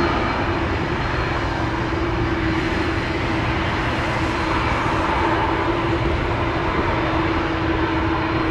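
Boeing 787-9 jet airliner's engines running with a steady, even noise and a held hum under it.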